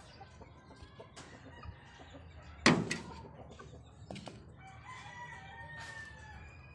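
Chickens clucking and a rooster crowing faintly in the background. One sudden loud sound about two and a half seconds in.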